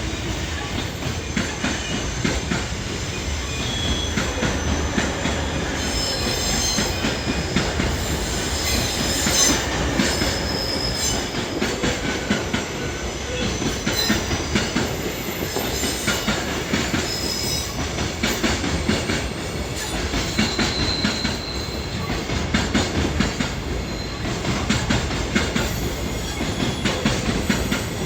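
JR Freight container wagons rolling past: a steady rumble of steel wheels clacking over rail joints, with thin, high wheel squeals coming and going.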